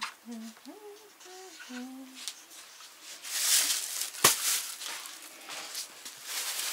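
A person humming a short wandering tune, then plastic bags rustling and crinkling as they are picked up and handled, with a single sharp tap about four seconds in.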